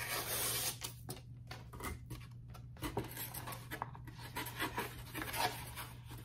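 Kraft paper envelope being opened by hand: a louder rustle in the first second, then intermittent short scrapes and rustles of paper as a card is slid out of it.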